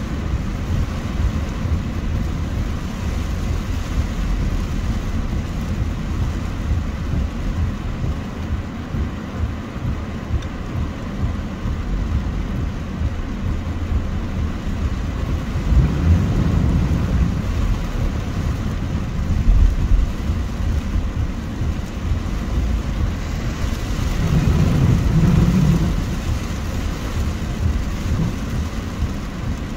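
Heavy rain falling on a car's windscreen and roof, heard from inside the cabin over steady engine and road noise. The low rumble swells twice, around the middle and again near the end.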